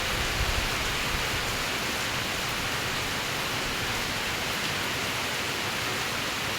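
Steady rain, an even hiss of falling drops, with a couple of low thumps in the first half second.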